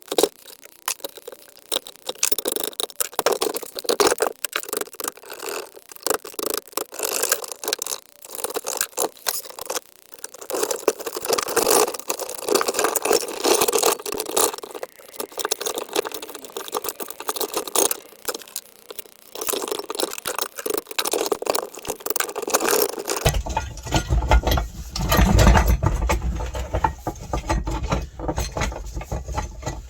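Irregular metal scraping and rattling from work on a split differential. A low rumble joins near the end.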